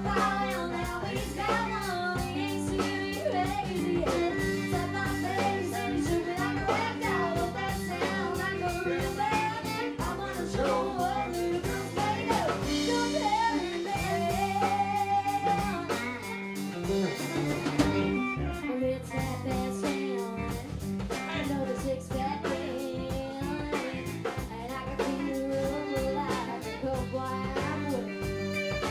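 A woman singing a country-rock song live into a microphone, backed by a band with guitar and a drum kit.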